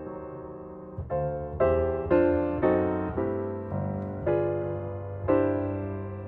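Background piano music: gentle chords and melody notes struck about every half second, each fading away, over a low bass line.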